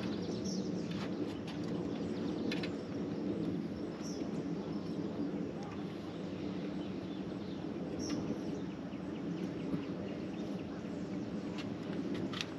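A steady low outdoor drone, with a few short high bird chirps scattered through it.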